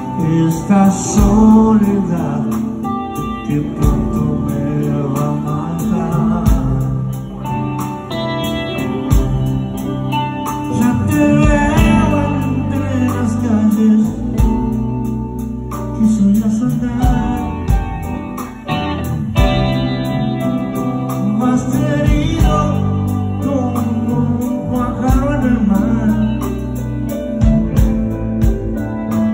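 Live band music: guitar lines over bass and drums, with bending, gliding notes.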